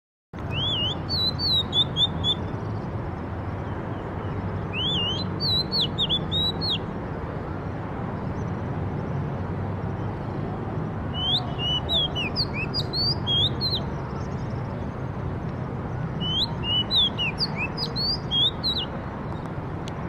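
A songbird singing in four bursts of quick whistled phrases, over a steady low background rumble.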